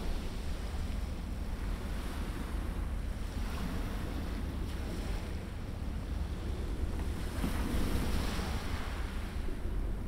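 Sea surf washing in over shallow water, with wind rumbling on the microphone. The surf swells a little louder about three quarters of the way through.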